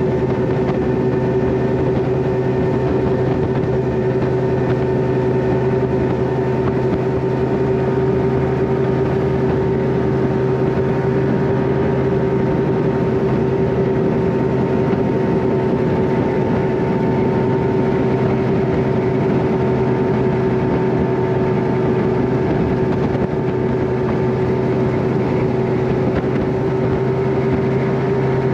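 Bass boat's outboard motor running steadily at speed under way, a constant engine drone with a held tone and the rush of air and water over the hull.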